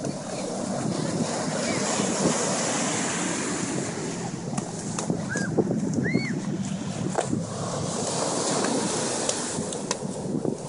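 Ocean surf washing up the beach, with wind buffeting the microphone. Two short high chirps sound a little past halfway.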